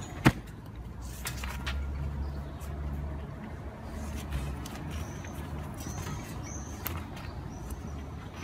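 A single sharp metallic clank, the loudest sound, about a quarter second in, as hands grab the top rail of a steel bar fence, under a low steady rumble. Short, high chirps come in a few times in the second half.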